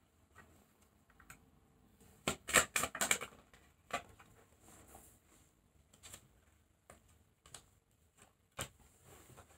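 Tarot cards being handled on a table: a quick run of card flicks and snaps about two seconds in, then a few scattered soft taps.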